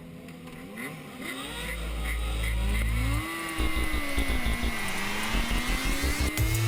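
Racing motorcycle engine running hard, its pitch rising and falling as it accelerates and slows, with a deep low drone underneath in places.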